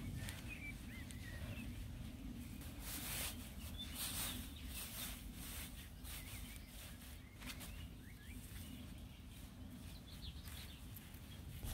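Gloved hands rustling and scraping in soil and grass-clipping mulch in short bursts, with small birds chirping in the background over a low steady rumble.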